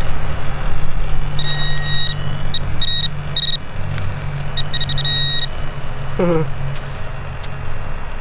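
Metal detector beeping as it is passed over dug-out soil: a high held tone, then quick pulsed beeps in short runs, signalling a metal target in the dirt. A steady low hum runs underneath.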